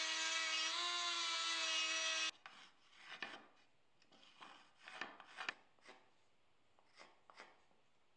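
Flexible-shaft rotary carving tool running at a steady high whine as its burr works the wood, stopping abruptly a little over two seconds in. Then a series of short, faint scratchy strokes of a marker drawing lines on the wood, in uneven groups.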